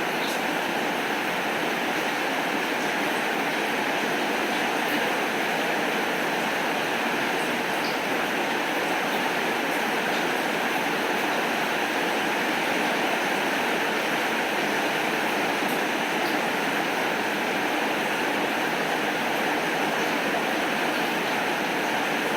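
Heavy rain falling steadily, an even hiss, with a few faint ticks.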